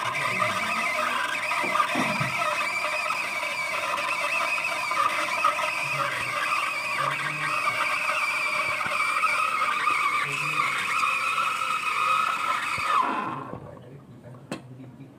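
Espresso machine steam wand steaming milk in a stainless steel pitcher: a steady hiss with a wavering high-pitched squeal. It cuts off about 13 seconds in, followed by a few light clicks.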